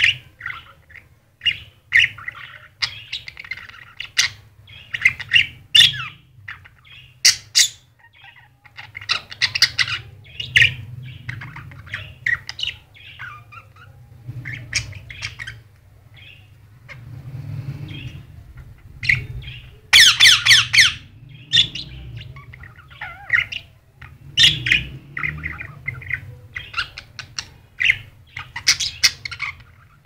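A budgerigar and an Indian ringneck parakeet chirping and squawking at each other in short bursts, with the loudest run of harsh calls about two-thirds of the way through.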